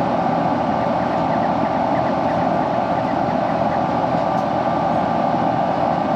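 Central air-conditioner outdoor condensing unit running steadily at close range, compressor and condenser fan on, just back in service after a new capacitor was fitted.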